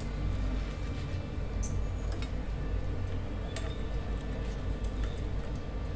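Strips of thethri dough frying in hot oil with a steady sizzle, with a few sharp clinks of a wire-mesh skimmer against the metal pan as the golden pieces are lifted out.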